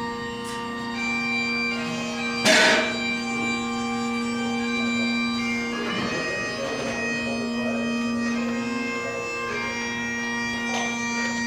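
Bagpipes playing a slow tune over their steady drones, with a short loud noise about two and a half seconds in.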